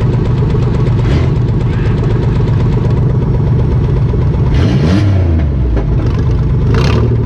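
2005 Chrysler Town & Country minivan's V6 engine idling, heard from inside the stripped-out derby cabin, with a brief rise and fall in engine pitch about five seconds in. Short bursts of hiss come about a second in, near five seconds and near seven seconds.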